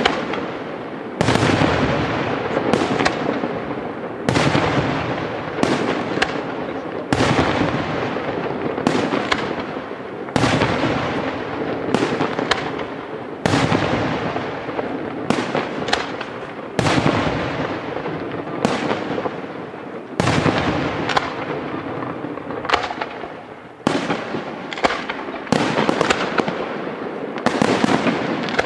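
Aerial firework shells bursting one after another, a sharp bang every one to three seconds, each trailing off in a long fading rumble. The bursts come faster and overlap near the end.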